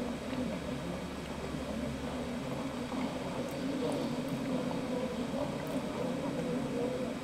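Steady low hum and hiss from an old film soundtrack playing through a television speaker, with no dialogue and a few faint ticks.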